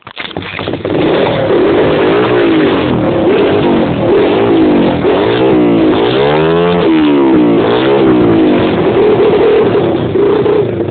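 Honda CR85 two-stroke motocross bike running with its exhaust baffle removed: it starts up right at the beginning, is revved up and down several times, and settles into a steady idle near the end.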